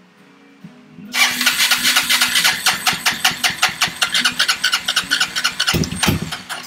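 Honda 300EX single-cylinder four-stroke engine being cranked over, starting about a second in as a fast, even train of chugging pulses with a louder burst near the end. It does not catch and run: the engine is not getting enough fuel.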